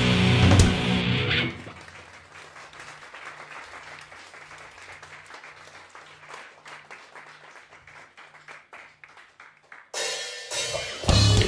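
Industrial metal band playing live. The full band cuts out about a second and a half in, leaving a quiet passage of a low note pulsing about twice a second over light ticking. Near the end the band comes back in at full loudness with guitars and drums.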